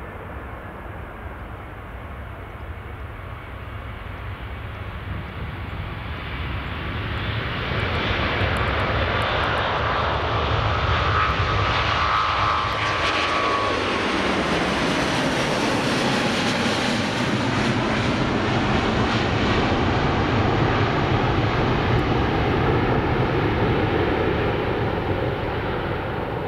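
Airbus A350-900's Rolls-Royce Trent XWB jet engines at take-off thrust, growing louder as the airliner approaches. A high whine drops in pitch as it passes about halfway through, then a loud, steady rumble starts to fade near the end.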